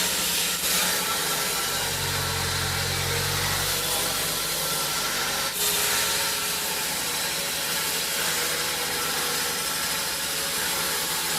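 Sawmill saw running steadily and cutting through an Aru wood log, a continuous loud mechanical noise, with a deeper drone from about two to four seconds in.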